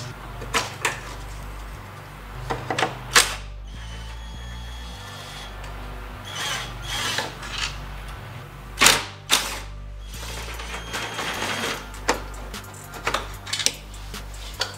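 Hand work on a plastic charge pipe: sharp clicks and plastic rattles of electrical connectors being unplugged and Torx screws being undone, coming in scattered clusters with a short rasping stretch in the middle. Quiet background music runs underneath.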